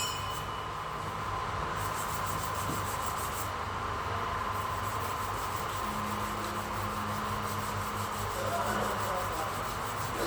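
Steady, continuous sanding over a dented surface: an even, scratchy rubbing with a fine, regular texture and a faint steady hum underneath.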